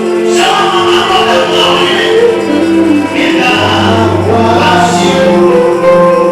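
Gospel music with a choir singing long, held notes.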